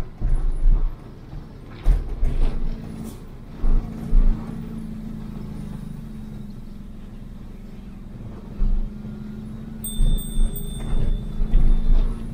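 Vehicle engine running at a steady note while driving downhill, with low thuds and knocks scattered through. A thin high-pitched tone sounds for about two seconds near the end.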